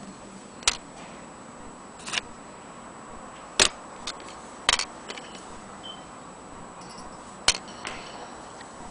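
Irregular sharp clicks and taps of small hard parts being handled, about eight over several seconds, some in quick pairs, over a faint steady hiss.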